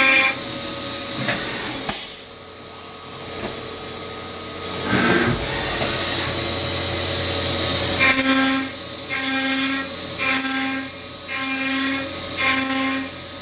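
Hurco 5-axis CNC machining center milling metal bar stock held in a three-jaw chuck, with coolant hissing. After a quieter hissing stretch, from about eight seconds in the end mill sings in regular bursts about once a second as it cuts in repeated passes.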